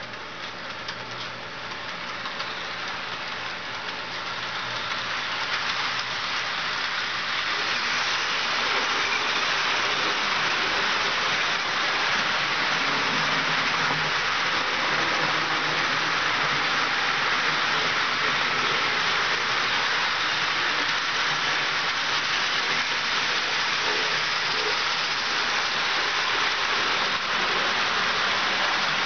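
HO scale model freight train running on its track: a steady rushing clatter of the cars' wheels on the rails. It grows louder over the first several seconds as the cars come close, then holds steady.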